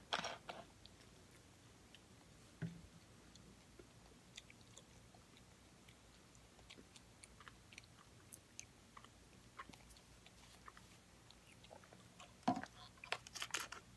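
A person chewing a bite of a baked pastry pocket with her mouth closed: soft scattered mouth clicks and smacks. One sharper knock comes a few seconds in, and a louder cluster of noises comes near the end.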